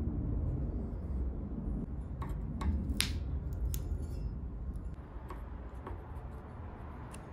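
Light tool-handling sounds: a few short, scattered clicks and taps as a metal scraper blade holds up lifted wood veneer and a plastic syringe squeezes wood glue underneath, over a low steady rumble.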